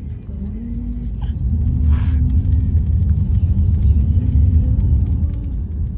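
A loud low rumble that swells about a second in and eases near the end.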